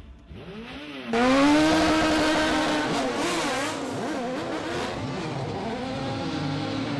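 Stunt car engine revving, then about a second in a sudden loud burst of engine and tyre squeal as the car spins its wheels in a smoky burnout, the noise carrying on as the cars slide.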